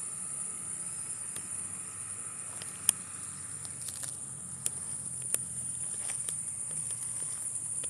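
Steady high-pitched drone of night insects, with a few sharp clicks and snaps scattered through it. The loudest click comes about three seconds in, and two more come a little before and after five seconds.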